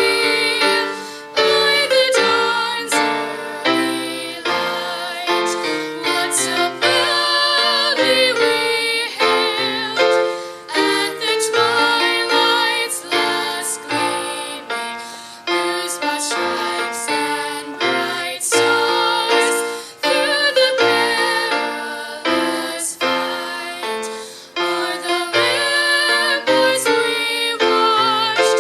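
Music: a piano accompanying a singer who holds notes with vibrato.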